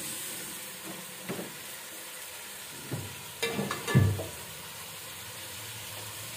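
Chicken and tomatoes sizzling in a metal pot on a gas stove as a spoon stirs them, with a few knocks against the pot, the loudest about four seconds in.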